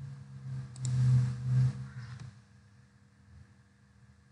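A low steady hum, loudest for about a second a second in, with a couple of faint clicks.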